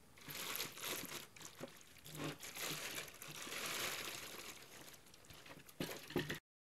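Clear plastic bag crinkling and rustling in irregular bursts as it is pulled off a digital microscope. It cuts off suddenly near the end.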